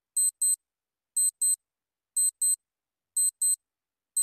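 Countdown clock sound effect: a high-pitched tick-tock, two short ticks in quick succession once every second.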